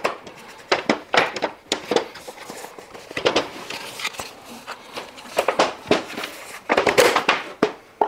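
Irregular plastic clicks and knocks as the lower cover of an Indesit condenser tumble dryer is unclipped and pulled out by hand.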